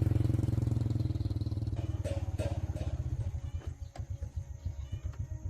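ZS1115 single-cylinder diesel engine running with a low, rhythmic chug that slows and fades as it runs down, with a few light metallic clanks about two seconds in.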